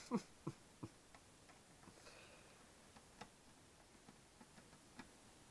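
Faint clicks of a screwdriver and small screws against a monitor's sheet-metal chassis as the screws are put back in: three quick clicks in the first second, then a few sparse, fainter ticks.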